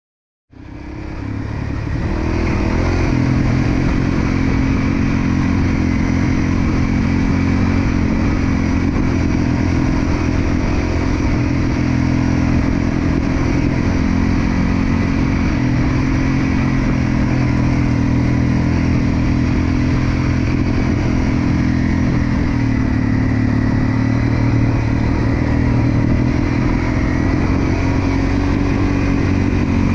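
Honda dirt bike's single-cylinder engine running at steady riding revs under the rider, with only small rises and falls in pitch. The sound comes up over the first two seconds, then holds steady.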